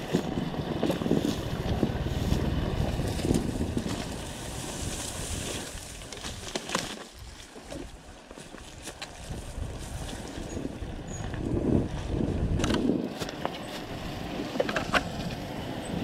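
Enduro motorcycle engine running under changing throttle on a trail ride, with wind rumble on the microphone; it eases off about seven seconds in and picks up again.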